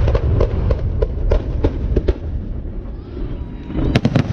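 Aerial fireworks shells bursting overhead: a string of sharp bangs over a low, continuous rumble, easing off for a moment, then a dense run of bangs near the end.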